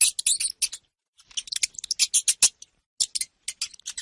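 Hamster making quick runs of short, high clicks and chirps, with a pause about a second in.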